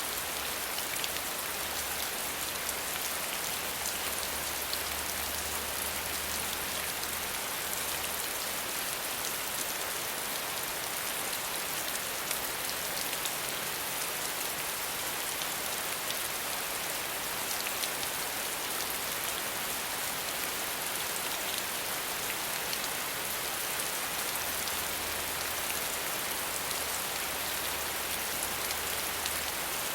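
Steady, even rain falling on a surface, a dense hiss of drops with fine pattering crackle. A faint low rumble sits underneath for the first several seconds and again near the end.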